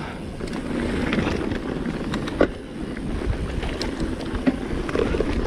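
Mountain bike rolling downhill on a loose gravel and dirt trail: steady tyre and trail rumble with wind on the microphone, and one sharp knock about two and a half seconds in.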